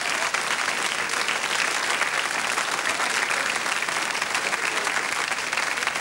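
Studio audience applauding: steady, dense clapping from many hands.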